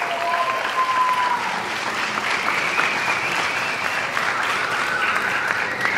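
An audience clapping steadily, with a few long, high-pitched calls sounding over the applause at different moments.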